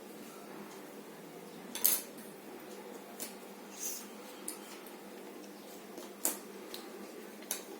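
Jigsaw puzzle pieces being handled and set down, making about seven sharp, irregular clicks and taps; the loudest comes about two seconds in.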